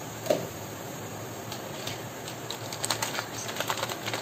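Light, irregular clicking and rustling from handling the spice while masala powder is sprinkled by hand into a glass bowl. The clicks come thicker in the second half.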